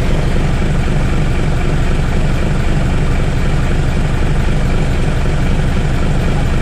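Isuzu Forward truck's diesel engine running steadily with a low, even rumble, the alternator charging at about 28 volts on its 24-volt system.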